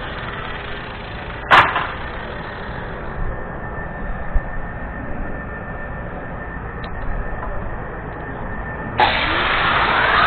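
A single sharp metal bang about a second and a half in, over a steady rumbling background, followed by a few light knocks. Near the end a louder, fuller sound comes in, leading into music.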